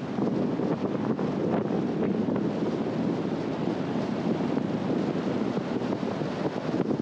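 Steady wind and road noise from a car driving, an even rumble with no engine note or other events standing out.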